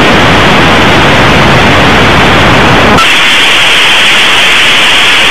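Loud, harsh TV static hiss with no tone in it. About three seconds in it turns thinner and hissier as the low end drops away.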